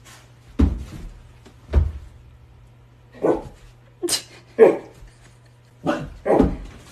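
Husky barking in short, sharp barks, about seven at uneven intervals, with the loudest ones in the middle.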